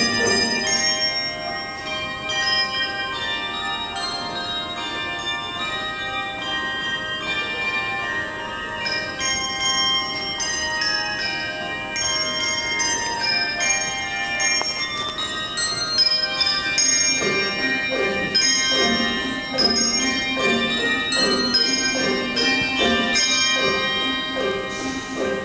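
Handbell choir playing a tune: many handbells struck and left ringing over one another, with a steady rhythm of lower-pitched bells joining about two-thirds of the way through.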